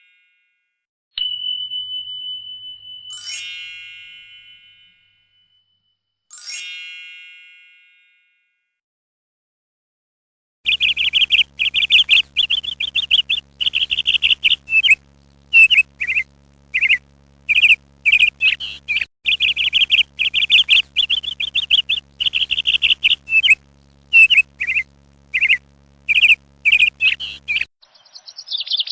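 Two bright ringing dings and a long held beep tone, then, after a few seconds of silence, a long run of rapid bird chirping that stops shortly before the end.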